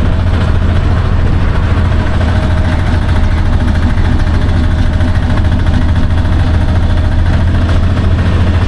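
Taxi engine running steadily with a constant low hum, heard from on board the moving vehicle.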